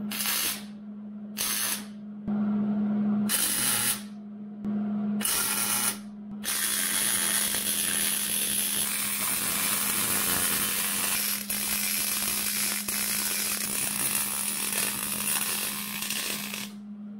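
Wire-feed welder's arc sizzling on steel tubing. There are about five short tack welds in the first six seconds, then one continuous bead for about ten seconds that cuts off near the end, over a steady low hum.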